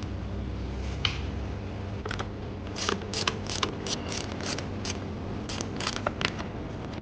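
A string of about a dozen sharp, irregular mechanical clicks over a low steady hum.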